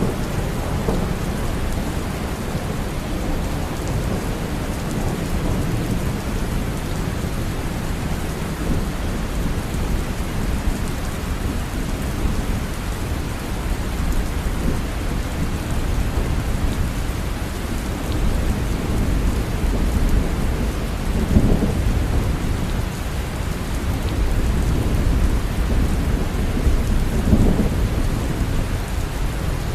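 Steady rain with a continuous low rumble of thunder, which swells briefly about two-thirds of the way through and again near the end.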